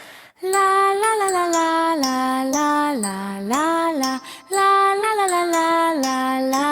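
A high voice singing a children's song melody: held notes stepping up and down, each note about half a second to a second long. The singing breaks briefly a little past halfway.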